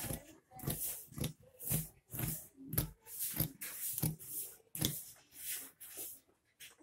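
Scissors cutting through folded printed fabric: a regular run of crisp snips, nearly two a second, as the blades close stroke after stroke along a curved cutting line.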